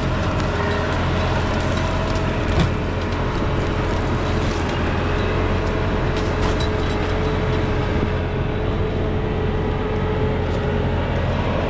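New Holland tractor's diesel engine running steadily with a low rumble and a faint steady whine, with a single knock about two and a half seconds in.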